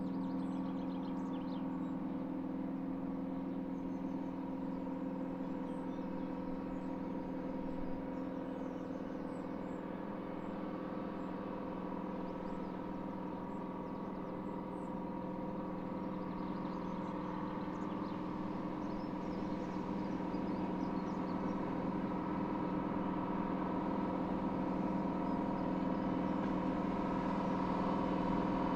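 Class 55 Deltic diesel locomotive's twin Napier Deltic two-stroke engines working as it approaches up the line: a steady, multi-toned drone that grows louder towards the end. Birds chirp faintly over it.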